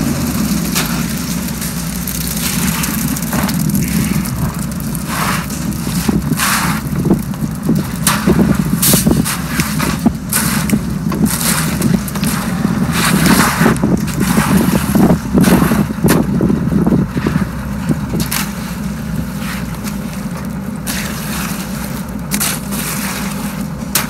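A transit mixer truck's engine running steadily, with wet ready-mix concrete pouring into formwork and hoes scraping through it in irregular bursts, busiest through the middle.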